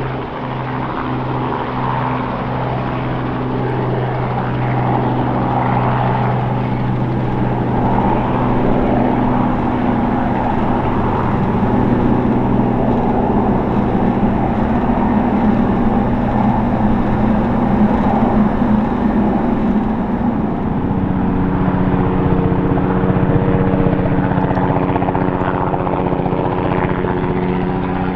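Robinson R44 Clipper II helicopter in flight, its main rotor and Lycoming IO-540 six-cylinder flat engine running steadily. The sound grows louder through the first half, and its pitch shifts about three quarters of the way through.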